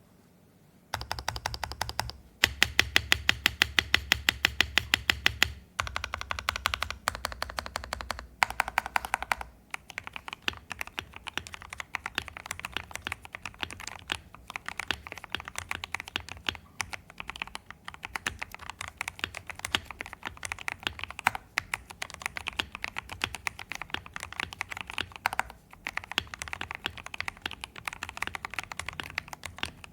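Mechanical keyboard with lubed Gateron Oil King linear switches, ePBT keycaps and a polycarbonate plate being typed on. For about the first nine seconds keys are struck in quick, evenly spaced runs with short pauses between them; after that it is continuous fast typing.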